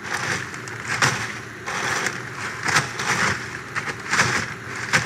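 A zip-top plastic bag of hard sugar candy slammed several times onto concrete to break it up. Each hit is a sharp crunch of cracking candy, coming about every second and a half, with plastic crinkling in between.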